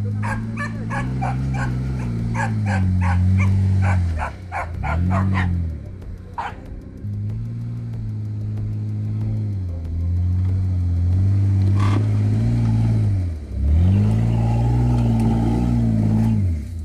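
Background hip-hop music with a deep sliding bass line. A quick, regular run of short sharp hits plays over the first five seconds.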